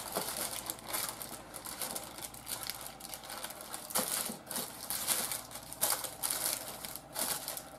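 Silicone spatula pressing and scraping stiff cake batter into a parchment-lined tin, the baking paper crinkling under the hand, in irregular rustles and scrapes.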